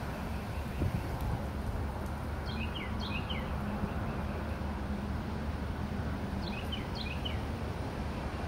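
A songbird singing twice, each time a short phrase of quick, high, down-slurred notes, over a steady low rumble of outdoor background noise.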